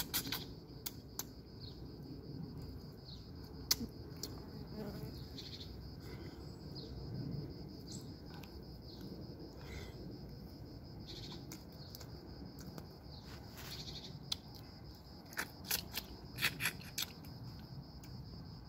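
Sharp clicks and cracks of cooked crab shell being broken apart and picked at by hand while eating, coming most thickly near the end. Under it runs a steady high drone of insects.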